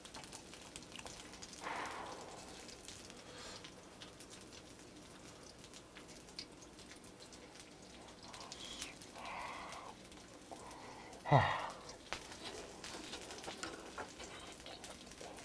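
Faint crackling of pork sizzling on a grill pan, with soft chewing sounds. About eleven seconds in, a short, loud vocal sound that drops steeply in pitch, like an appreciative grunt.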